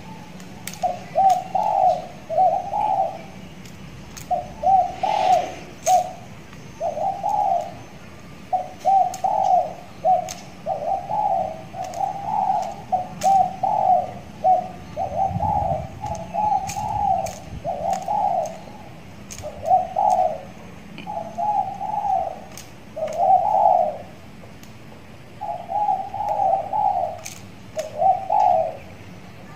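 Spotted dove cooing over and over, each phrase a short run of soft notes with brief pauses between. It is a young trained bird that has started singing freely.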